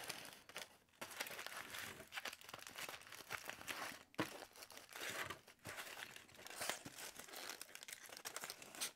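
Crumpled aluminium foil crinkling and crackling in irregular bursts as hands press and fold it around a foam block.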